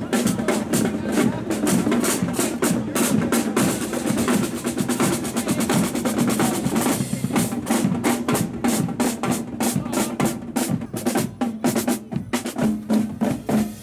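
Marching drum band playing: rapid snare drum strokes and rolls over bass drum beats, with a steady low tone held underneath.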